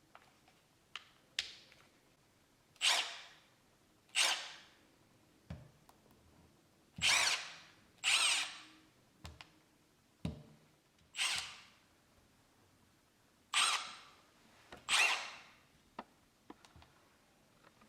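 Milwaukee M12 Fuel 3/8-inch stubby impact wrench (2554-20) run with short trigger pulls: seven brief whirring bursts, mostly in pairs, each spinning up and winding down. Light clicks come between them.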